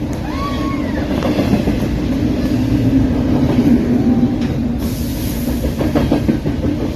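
Double-stack container freight train rolling past close by: a steady, loud rumble and clatter of steel wheels on rail, with a few faint brief wheel squeals.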